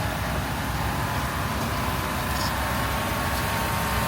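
Steady background din of a busy outdoor street bazaar, with a low engine-like rumble underneath and no single sound standing out.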